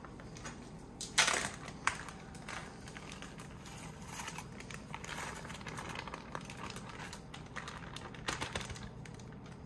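Plastic bag crinkling and rustling as it is pulled open and squeezed to empty crab meat into a pot. There are sharp crackles about a second in and again near the end.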